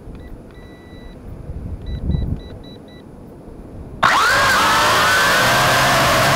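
A few short, high electronic beeps, then about four seconds in the Tarantula X6 quadcopter's motors spin up abruptly with a rising whine and run loud and steady for lift-off.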